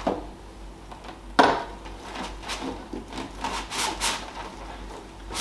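An electric scooter's handlebar piece being worked onto its steering column: a sharp knock about a second and a half in, then several short scraping, rubbing sounds as the parts are pushed together.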